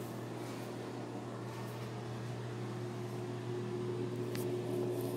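Steady low mechanical hum, with a higher steady tone that grows louder from about the middle on, and one short click near the end.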